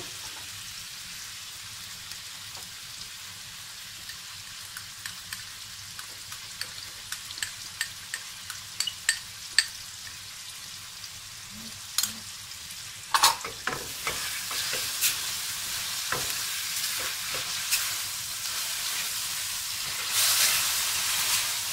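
Mutton liver pieces sizzling in oil in a stainless steel pan over a medium gas flame, with small crackles and the scrape of a silicone spatula stirring them. The sizzle briefly grows louder a little past the middle and again near the end.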